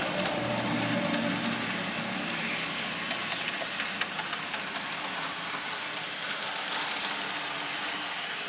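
N-scale model trains running around the track: their small electric motors hum steadily, with scattered light clicks of the wheels on the rails from about three seconds in.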